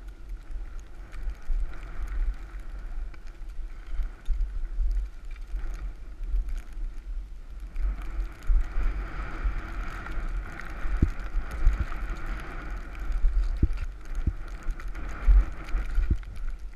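Wind buffeting the camera's microphone as a snowboard runs downhill over snow, with a steady hiss of the board on the snow that grows stronger about halfway through. A few sharp knocks come near the end.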